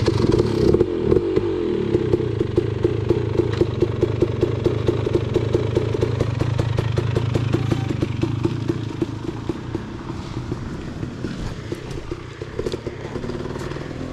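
Dirt bike engine running with a steady, closely spaced putting beat. It grows gradually quieter over the second half.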